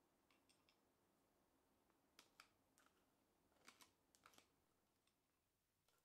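Faint metallic clicks and taps as the steel jaws of combination pliers meet and grip a steel rod. The clicks come in small irregular clusters, some with a brief ring.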